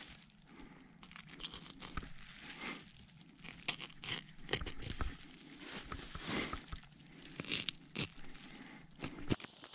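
A knife slitting open a deer's belly hide during field dressing, mixed with the crinkle of plastic gloves and sleeves: irregular soft tearing and crackling strokes.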